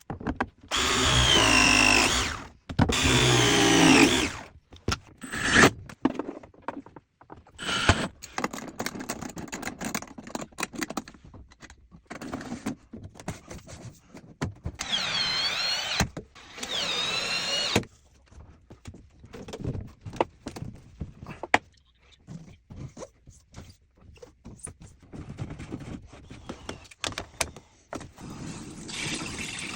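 Clicks, knocks and short tool noises from plumbing installation work, broken by loud stretches of electronic music near the start and again about halfway through.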